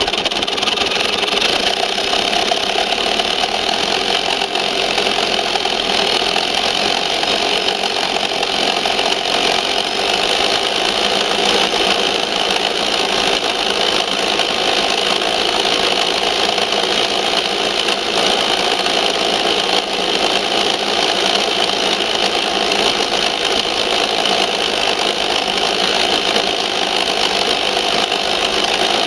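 Tamiya Ford F350 4x4 RC truck's electric motor and gearbox running steadily with a constant whine. It is recorded close up from a camera strapped onto the truck's body.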